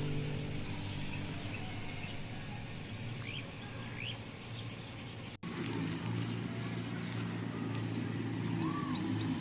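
Outdoor rural ambience with a couple of short rising bird chirps about three and four seconds in. After an abrupt cut about halfway through, a steady low hum continues over the background noise.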